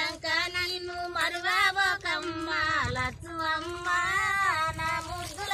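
A high-pitched voice singing a melodic song with wavering, ornamented notes that rise and fall.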